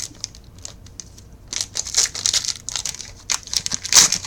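Foil trading-card pack wrappers crinkling and tearing as packs are opened, with quick sharp clicks of cards being handled. It is sparse at first, then busier and loudest near the end.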